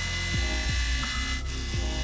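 Background music with a bass line, over a mini lathe running as it cuts a brass block. The lathe's high motor whine and cutting hiss stop about one and a half seconds in.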